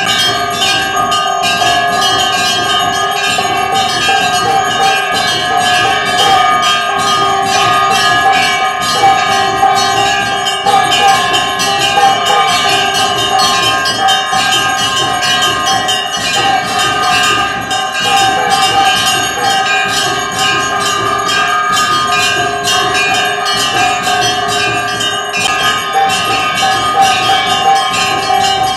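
Puja bells rung rapidly and without pause, several ringing pitches overlapping into a continuous clangour.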